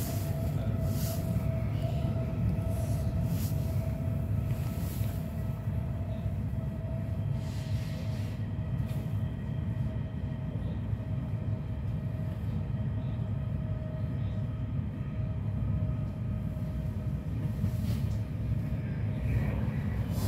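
Electric commuter train running along the track, heard from inside the carriage: a steady low rumble of the wheels on the rails with a faint steady whine over it and a few light clicks.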